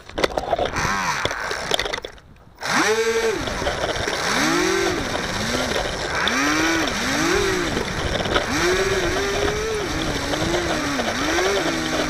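Electric motor and propeller of a HobbyZone Firebird Delta Ray RC plane being throttled up and down again and again while it taxis on the ground, a whine that rises and falls about once a second. For the first two seconds there is a rough rushing noise, which drops out briefly before the motor bursts begin.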